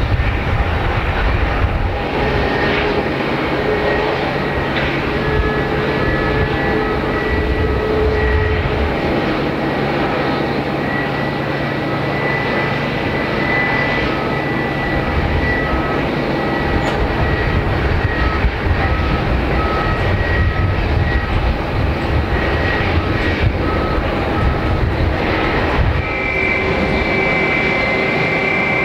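Airbus A320 jet airliner running on the apron: a steady whine of several tones over a low rumble. About 26 s in, the whine switches to a higher pair of tones.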